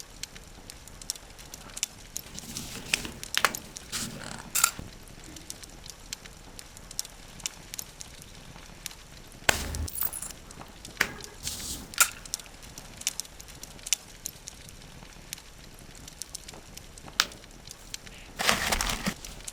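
Hands packing jewelry orders: scattered light clicks, taps and small clinks of items and packaging being handled, with a heavier thump about nine and a half seconds in and a longer stretch of rustling near the end.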